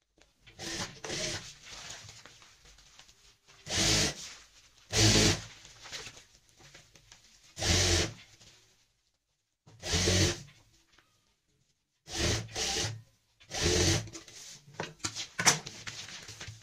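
Cloth lined with woven plastic sacking being handled and smoothed: crinkly rustling and rubbing in about seven short loud bursts with softer scraping between them.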